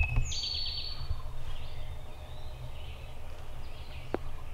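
Songbirds singing in spring woodland over a steady low rumble, with a faint, distant wild turkey gobble among the calls. A single sharp click near the end.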